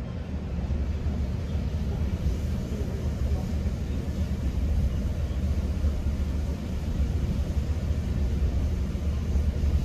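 Steady low rumble of a moving GO Transit commuter train, heard from inside a bilevel passenger coach.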